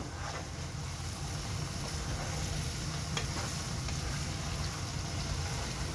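Wooden spoon stirring chicken adobo in a pot, with a few light knocks and scrapes of the spoon against the pot, while the soy-and-vinegar sauce sizzles steadily over the gas flame.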